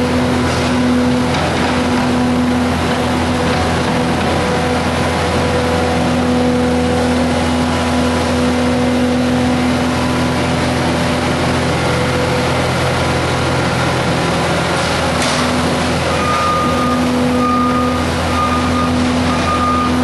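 Bobcat compact track loader's diesel engine running steadily under a hydraulic whine that dips and returns as the loader lifts and carries hay bales on its forks. Near the end a short beep repeats about once a second.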